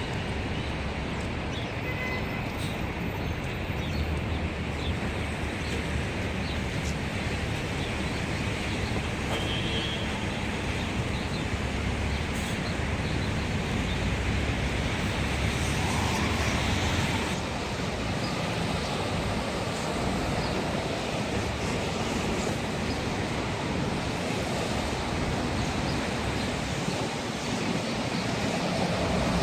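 Steady city street traffic noise, a continuous wash of passing vehicles.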